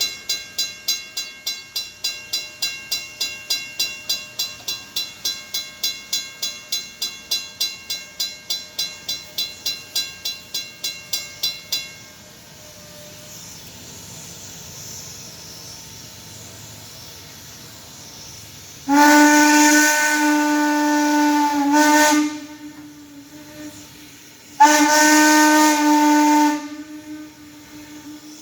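A fast-ringing bell, about four strikes a second, stops about twelve seconds in. Then Norfolk & Western 475's steam whistle sounds a long blast, a short toot and a second long blast.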